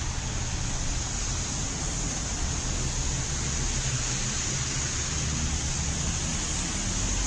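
Steady hiss of rain and traffic on a wet street, with a low hum underneath.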